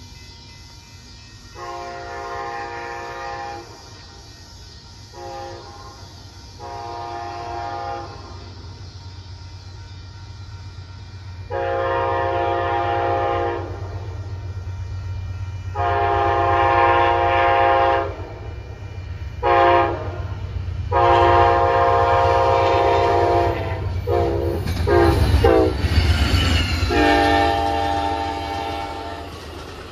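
Amtrak P42DC diesel locomotive sounding its K5LA five-chime air horn in a run of blasts that grow louder as it approaches, including the long-long-short-long grade-crossing signal. The train then passes close by with a heavy rumble and wheel clatter, and the horn sounds once more as Superliner passenger cars roll past.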